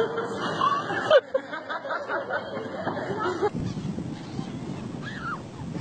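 Children laughing and chattering, with one sharp loud shriek about a second in. About three and a half seconds in, the sound changes abruptly to a quieter outdoor clip with a few short high cries.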